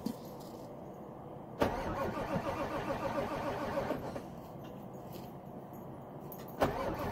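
Ford 7.3L Powerstroke V8 turbo-diesel being cranked by its starter on a cold start: one cranking attempt from about a second and a half in to about four seconds, then a second attempt begins near the end. The engine is reluctant to fire in the cold.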